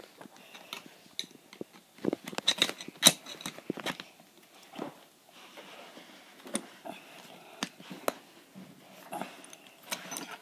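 Irregular metallic clinks and knocks of a wrench working against the metal core of a Honeycore scooter wheel, with a few louder strikes about two to four seconds in.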